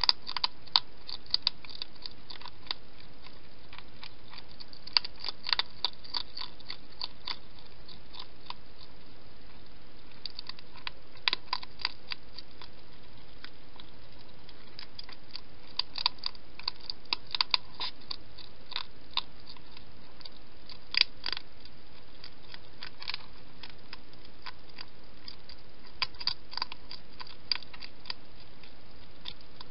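Wild hedgehog chewing its food: bursts of sharp crunching clicks with pauses of a few seconds between them, over a steady hiss.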